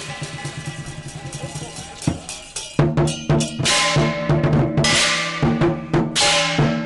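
Lion dance percussion: a large lion dance drum beaten in quick strokes together with clashing hand cymbals. It is quieter at first, then louder from about three seconds in, with repeated cymbal crashes.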